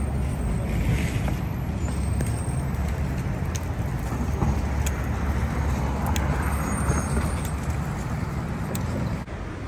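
City street traffic noise: a steady low rumble of passing cars, trucks and buses, with a few faint ticks.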